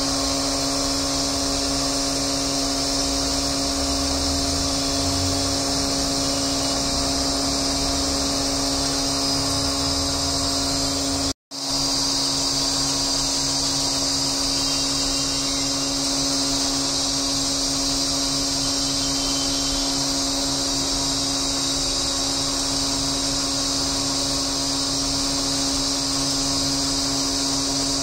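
Steady electric motor drone with a constant hum and hiss, dropping out for a moment a little over a third of the way through.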